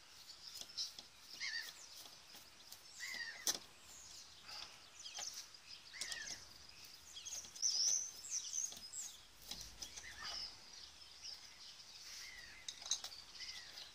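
Birds chirping intermittently, short curved calls every second or two, with scattered light clicks and taps from a screwdriver working small screws into a plastic socket base plate.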